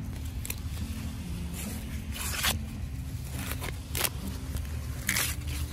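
Fresh corn husks being peeled off the ear by hand: a series of sharp tearing rips, the three loudest about two, four and five seconds in.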